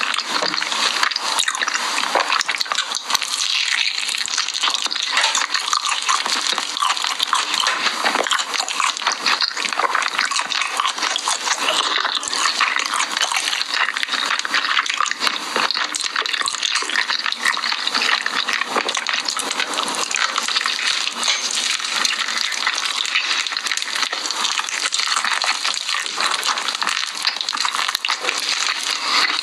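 Close-miked crunching and chewing of sauce-glazed fried chicken: a dense, steady run of crackles from the crisp coating.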